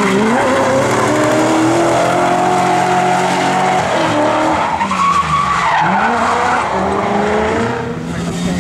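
A rally car's engine running hard under acceleration. Its pitch climbs steadily, then drops sharply at gear changes or lifts, three times in all, with tyre noise underneath.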